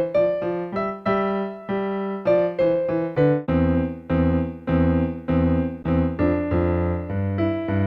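Electronic keyboard with a piano voice playing a simple melody in separate, evenly paced notes. About three and a half seconds in, a lower part joins, so both hands are playing.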